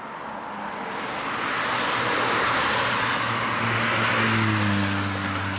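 A motor vehicle passing close by on the road. The tyre and road noise swells over the first two seconds, then a low engine hum sets in and sinks slightly in pitch as it goes past.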